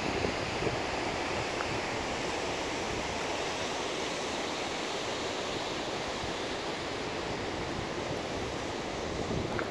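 Steady rushing of a mountain creek's water, even and unbroken, with an uneven low rumble of wind on the microphone.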